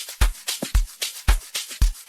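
Amapiano beat playing: a steady four-on-the-floor kick drum about twice a second, with crisp high percussion hits between the kicks.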